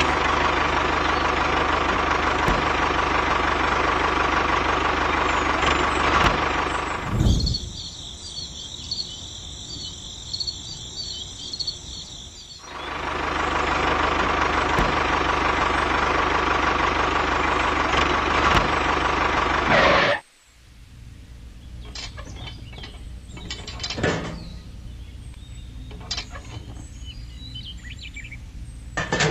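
A small engine running with a steady drone, which breaks off about seven seconds in for a stretch of high chirping, then runs again until about twenty seconds in. After that there is a quiet low hum with scattered clicks and knocks.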